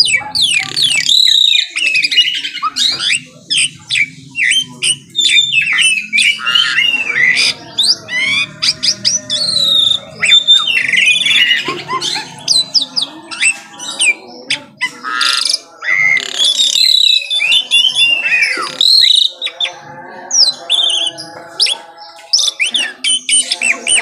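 White-rumped shama singing a loud, rapid, varied song of whistles, chirps and sweeping notes.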